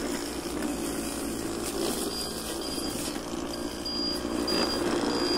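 Homemade radio-controlled electric lawnmower running: its 120 W, 24 V scooter motor spins a brushcutter blade through grass with a steady hum.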